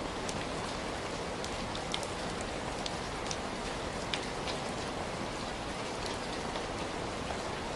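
Steady heavy rain falling, with scattered sharper drop impacts ticking out of the dense, even wash.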